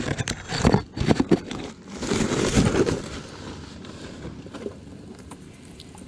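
Thin plastic shopping bags rustling and crackling as they are handled, in irregular crinkles, loudest in the first three seconds and then fainter.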